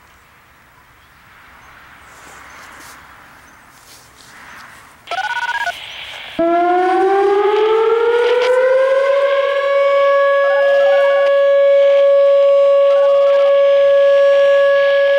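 Whelen Vortex R-4 electronic outdoor warning siren starting its Alert signal. After a short harsh burst about five seconds in, a loud tone sweeps up in pitch over about three seconds, then holds one steady pitch.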